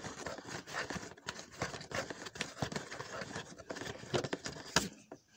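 Hands scraping and rustling on cardboard packaging, with a stream of irregular clicks and scratches as plastic fasteners are worked loose from the box. It stops shortly before the end.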